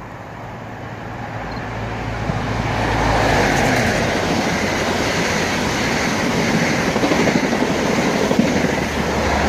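A GWR High Speed Train with Class 43 diesel power cars passes through the station at speed. The power car's engine and rumble grow louder over the first three seconds, then the rush of the coaches and wheels on the rails holds loud, with a few sharp knocks near the end.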